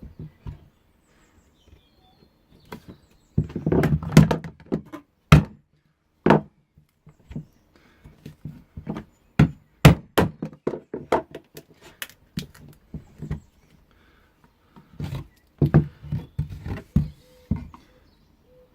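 Irregular mallet blows and knocks on a glued casting mould, knocking it apart to break the glue joints and free the cured resin pen blanks. A quick flurry of strikes comes a few seconds in, single hard blows follow through the middle, and another run of knocks comes near the end.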